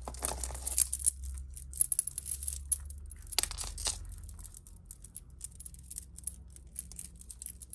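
Costume jewellery clicking and rattling as hands untangle a shell-and-bead necklace from a heap of beads and chains, with irregular small clinks, busiest in the first few seconds. A steady low hum runs underneath.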